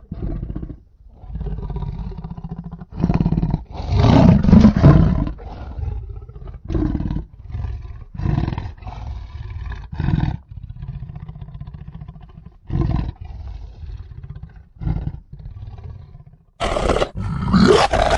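A string of creature roars and growls, one call after another with short pauses between them. The loudest come about four seconds in and again near the end.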